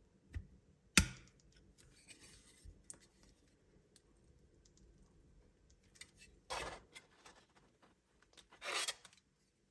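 Plastic snap-fit model airliner being handled and fitted onto its plastic display stand: a sharp click about a second in, then two short scrapes of plastic rubbing on plastic near the end.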